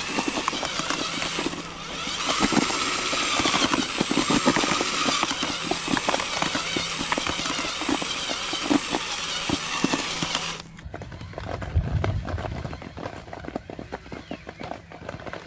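Cordless drill spinning a mixing paddle through dry feeder groundbait in a bucket: a steady motor whine over a dense crackling of crumbs against the bucket. About ten seconds in the sound drops suddenly and turns fainter, with scattered ticks.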